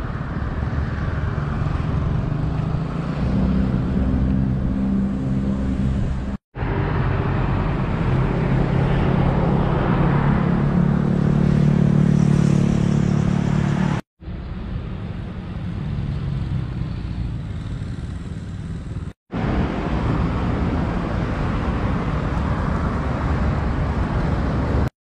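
Roadside traffic: vehicle engines and tyres passing on a road, a steady low drone that grows loudest about halfway through. It breaks off abruptly three times for a split second.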